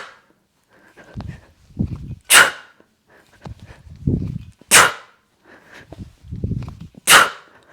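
Three sharp, hissing forced exhales about two and a half seconds apart, each the explosive breath timed with the hip snap of a kettlebell snatch. Softer low thuds from the movement come between them.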